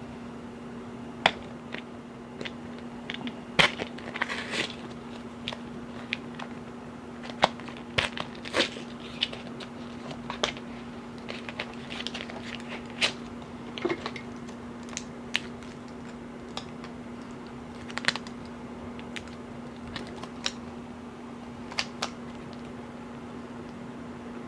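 Scattered sharp plastic clicks and taps from handling a small action camera and its parts, over a steady low hum.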